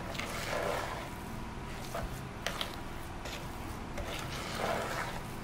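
A spatula stirring a thick, grainy scrub paste in a stainless steel bowl: soft scraping and rubbing about half a second in and again near the end, with a few light clicks between.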